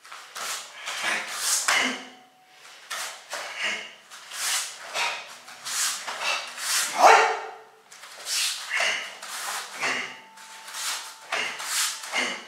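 A karate practitioner performing a Shotokan kata, with a short, forceful exhalation and the snap of the cotton gi on each technique. They come in quick runs of one or two a second. About seven seconds in comes a louder, pitched kiai shout.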